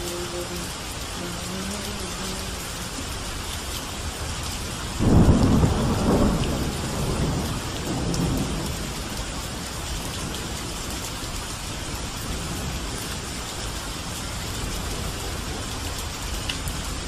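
Steady rain falling, with a roll of thunder about five seconds in that rumbles low for a few seconds and dies away.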